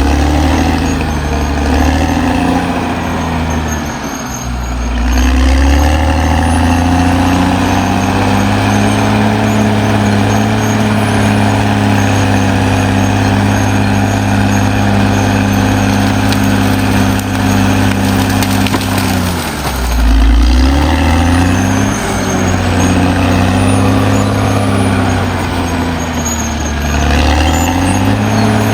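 Caterpillar D6R XL bulldozer's diesel engine running hard under load. Its pitch sags sharply and climbs back three times as the engine lugs down and recovers.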